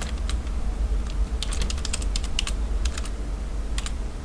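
Computer keyboard keys clicking as a command is typed, in irregular clusters of keystrokes with short pauses between them, over a steady low hum.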